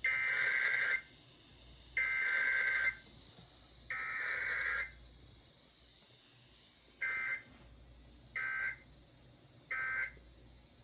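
Emergency Alert System data tones over a radio broadcast: three one-second warbling header bursts a second apart, then, after a short pause, three brief end-of-message bursts. No attention tone or voice message comes between them, the pattern of a Required Weekly Test.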